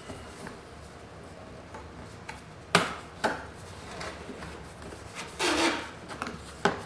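Cardboard shipping box being opened and handled: a few sharp knocks and a longer scraping rub of cardboard about five seconds in.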